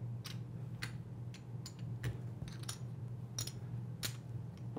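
Casino chips clicking against one another as they are picked up and set down on a craps table layout: a series of short, sharp, irregular clicks over a steady low hum.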